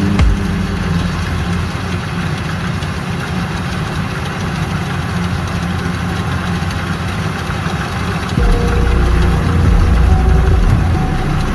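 Engine of a rice harvesting machine running steadily, growing louder and heavier about eight seconds in.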